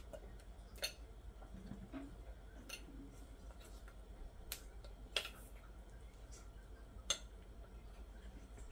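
A few faint, sharp clinks of a utensil against a glass measuring cup of melted chocolate, about five spread through, as balls are dipped and coated.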